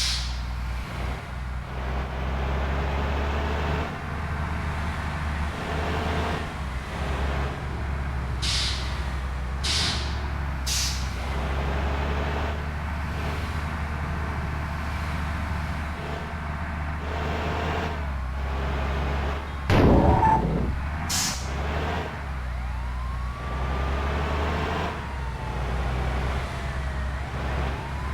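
Bus's diesel engine running steadily in slow traffic, with short sharp air hisses from the air brakes several times. There is a loud knock about twenty seconds in, and a rising and falling wailing tone near the end.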